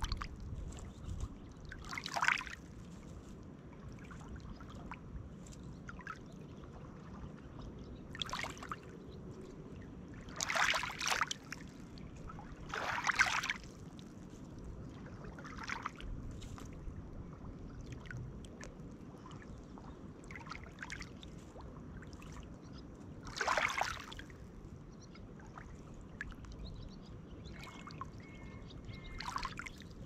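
Small lake waves lapping and washing over a pebble shore. Now and then a wavelet breaks with a brief splash, about six times at uneven intervals.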